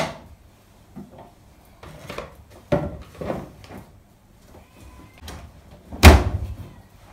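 Laundry being handled and dropped into a top-loading washing machine with a few soft knocks and rustles, then the machine's lid shut with one loud thump about six seconds in.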